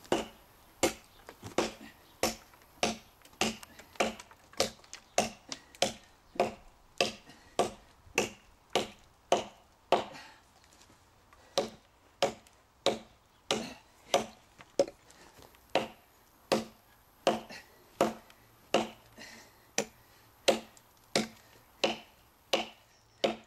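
Cold Steel Trail Hawk tomahawk chopping into a hard seasoned elm log: a steady run of sharp strikes, about three every two seconds, with a short pause about halfway through.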